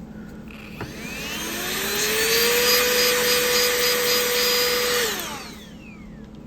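Small handheld electric motor with a rush of air: it spins up with a rising whine, runs steady for about two and a half seconds, then winds down. It is being used to clear crud out of a fidget slider.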